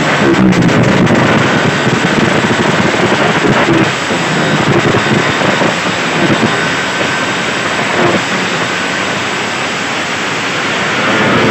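Motor scooter engine revving in repeated bursts while held at a drag-race start line, ready to launch.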